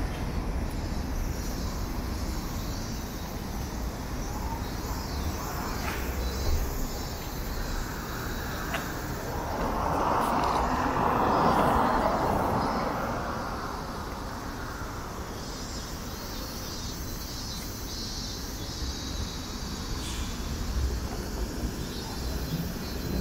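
Street traffic ambience at a city intersection: a steady low rumble, with the rush of something passing close that swells and fades over a few seconds around the middle.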